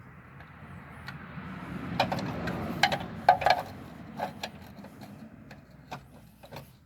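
Ratchet and socket working an oil pan bolt loose: a run of ratcheting swells and fades over the first few seconds, with several sharp metallic clicks in the middle and a few fainter ones later.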